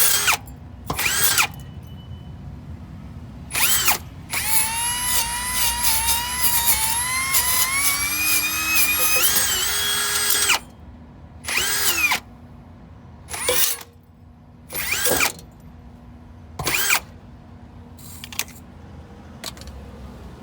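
Handheld power tool cleaning back a fresh weld on a car muffler. It runs in short bursts of under a second, with one long run of about six seconds whose pitch wavers and climbs as it loads and unloads, then cuts off.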